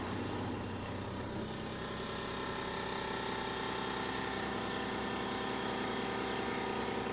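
Taig CNC milling machine squaring metal bar stock: the spindle runs steadily while the cutter faces the top of the bar, a continuous machining whir with no pauses.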